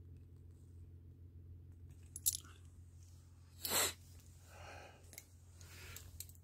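Handling noise from a phone moved through tomato plants: a few sharp clicks, one loud crunch a little past halfway, then softer rustling of leaves, over a steady low hum.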